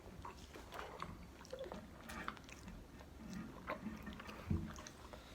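Faint chewing and eating sounds: scattered small mouth clicks and soft smacks, with one brief low thump about four and a half seconds in.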